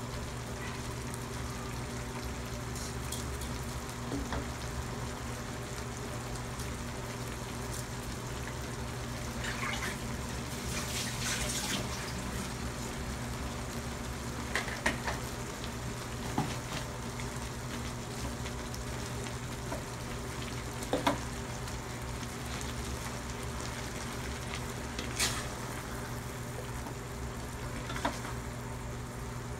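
Water spinach simmering in its cooking liquid in an aluminium wok: a steady bubbling sizzle over a low hum, with a few short knocks of a wooden spatula against the wok in the second half.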